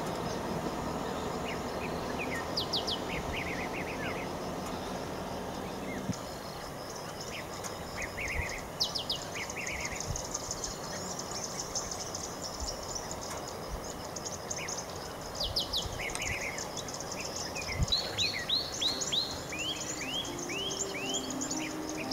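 Wild birds calling in the bush: scattered chirps and quick falling whistles, with a run of about six falling notes near the end, over a steady high insect hiss. A low hum underlies the first six seconds and then stops.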